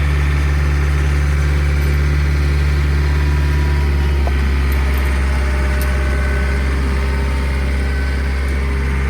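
Tractor engine running steadily as it drags a chained log. Its note shifts slightly about four seconds in.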